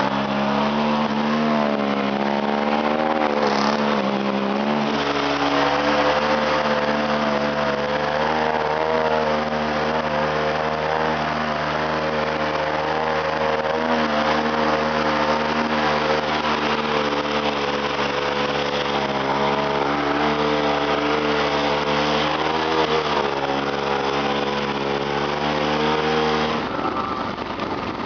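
ATV engine running under load, its revs rising and falling as the throttle is worked. Near the end the engine note drops off.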